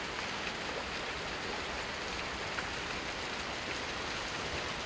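Shallow stream running, a steady rush of moving water.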